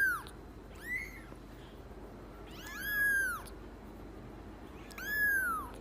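A cat meowing four times, each meow rising then falling in pitch: one already under way at the start, a short one about a second in, a longer one around three seconds, and another near the end.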